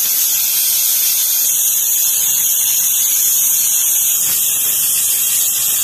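Stovetop pressure cooker hissing steadily as steam vents from its weight valve while it cooks under pressure.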